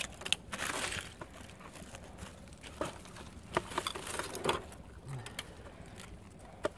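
Gloved hand digging and scraping through loose soil, dead leaves and buried metal scrap: scattered short scrapes, rustles and small knocks.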